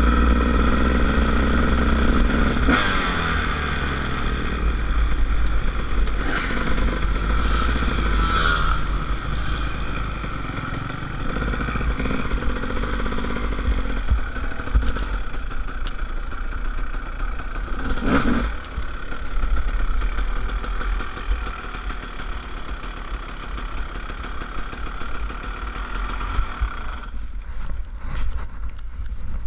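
Honda CR250 two-stroke single-cylinder dirt bike engine running at low speed, rising briefly a few times, with wind rumble on the microphone. The engine cuts out about 27 seconds in.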